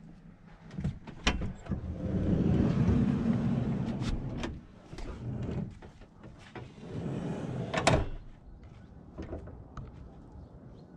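A campervan's sliding side door being unlatched and rolled open along its track, with clicks and knocks around it and one sharp knock about eight seconds in.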